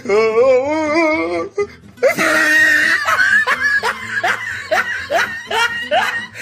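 Meme sound effect clips: a wavering, warbling pitched sound for about a second and a half, then, after a short gap, a loud burst of laughter with repeated "ha" bursts, about two a second.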